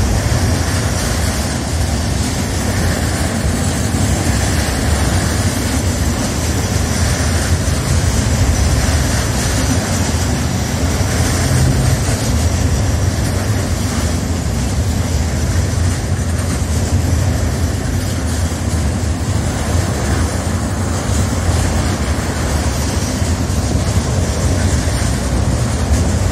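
Intermodal freight train's pocket wagons carrying semi-trailers rolling past: a steady, unbroken rumble of wheels on rail, heaviest in the low end.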